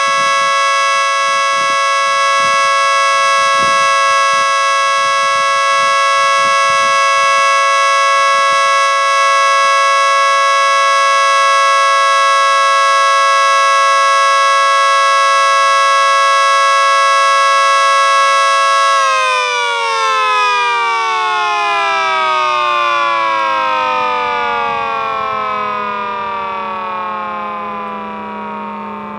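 Mini 3T22B civil defense siren sounding a steady chord of several tones, the steady Alert signal. About two-thirds of the way through, the pitch starts falling steadily and the sound fades as the siren winds down at the end of the signal.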